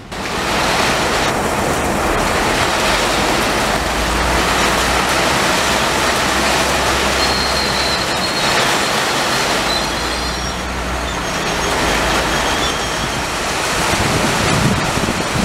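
An Indian Railways passenger train's coaches rolling past in heavy rain, a loud steady rush of wheel and rain noise. A faint high wheel squeal comes in about the middle, over a low rumble.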